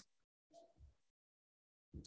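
Near silence: a pause in speech on a video call, where the audio drops to dead silence apart from a very faint trace of sound about half a second in.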